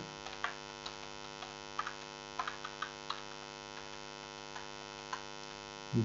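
Steady electrical mains hum on the recording, with a scattering of soft computer keyboard key clicks as a line of code is typed.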